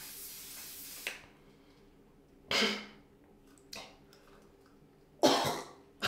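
Fine mist hissing from a face spray bottle, cutting off about a second in. Then come four short, sharp bursts of breath from a person who has sprayed it into her nose, the loudest about five seconds in.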